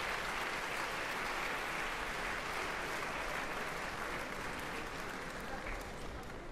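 Theatre audience applauding: dense, steady clapping from a large crowd, easing off slightly near the end.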